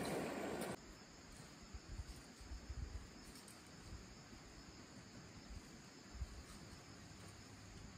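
Faint steady chirring of insects, likely crickets, with scattered low bumps on the microphone. A louder rush of stream water cuts off abruptly less than a second in.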